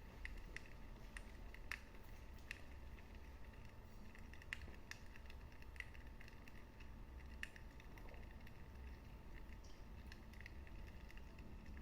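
Wood fire burning in a fireplace, crackling faintly with irregular sharp pops and snaps over a soft low rumble.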